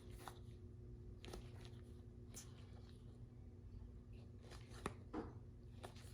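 Faint, scattered soft clicks and rustles of baseball cards being flipped through by hand, over a faint steady hum.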